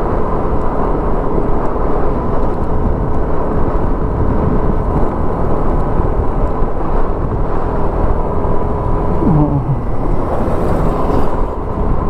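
Yamaha motor scooter riding at a steady speed over a cracked, broken road surface: a steady engine drone with road rumble from the tyres.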